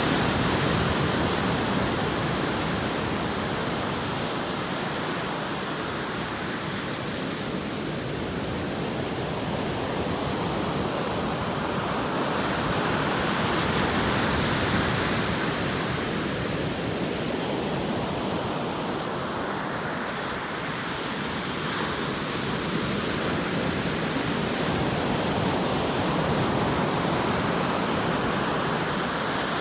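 Ocean surf: a continuous wash of waves breaking and rolling in, swelling and easing roughly every thirteen seconds.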